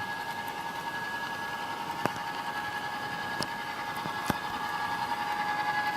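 HO-scale model locomotives running on the track under DCC decoder control, a steady electric hum with a few sharp clicks.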